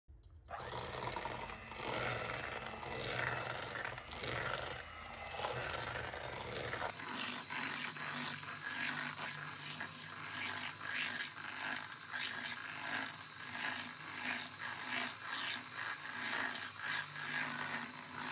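A silicone spatula scraping and mashing margarine and sugar in a bowl. After about seven seconds this gives way to a 7-speed electric hand mixer running, its beaters creaming the mixture with a steady whine and evenly repeated ticking.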